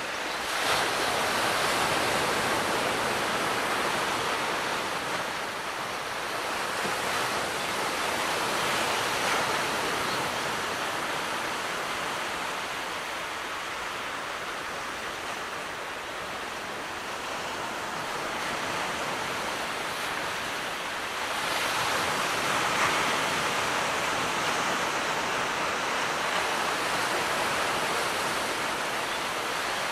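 Gentle sea waves washing onto the shore: a steady hiss of surf that swells and eases over several seconds, loudest near the start, around eight seconds in and again from about twenty-one seconds.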